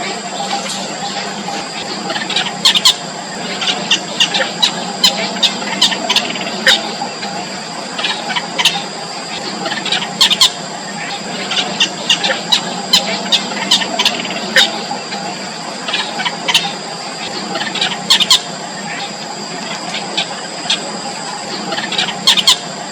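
Four-day-old nestlings squeaking, begging to be fed: short, sharp high-pitched squeaks that come irregularly, often several in quick succession. Two steady high tones run underneath.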